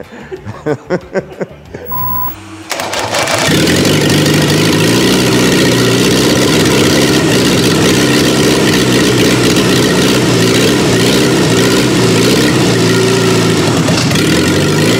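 A petrol engine rebuilt with raised compression and a diesel injection pump fires up on diesel fuel about three seconds in, then runs steadily and loudly.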